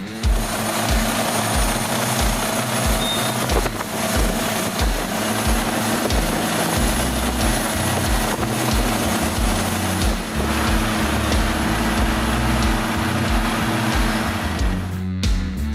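Diesel trencher running: a loud, dense, steady engine and machinery noise that cuts off abruptly near the end.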